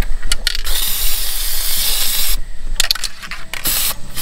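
Aerosol spray paint can hissing in bursts: a couple of short sprays, one long spray of about two seconds, then a few shorter sprays near the end.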